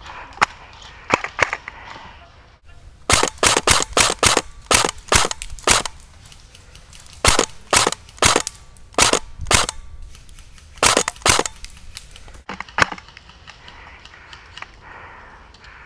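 Airsoft rifle firing sharp single shots in quick runs: about twenty cracks, starting about three seconds in and ending a few seconds before the end.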